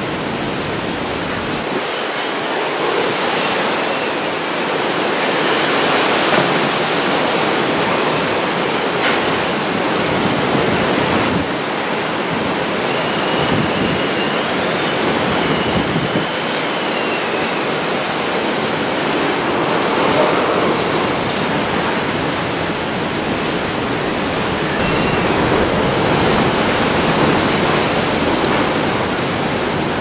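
Typhoon Jebi's storm wind and heavy rain: a dense, steady rush that swells and eases several times as gusts come through. A faint wavering whistle rises and falls about halfway through.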